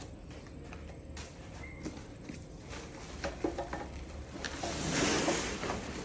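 A new ladder being unpacked from its box: a few light knocks, then a longer rustling, scraping swell near the end as it is handled and slid out of the packaging.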